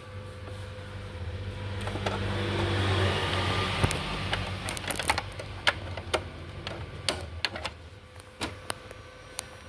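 Epson L1110 inkjet printer's mechanism running: a motor whir swells over the first few seconds and then fades, followed by a run of irregular clicks from the feed and carriage.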